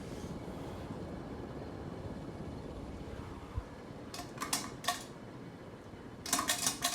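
36-inch Hunter Loki ceiling fan running on high speed, a steady rush of moving air from a fan that wobbles at this speed. Past the middle come a few light clinks, and a quick cluster of them near the end.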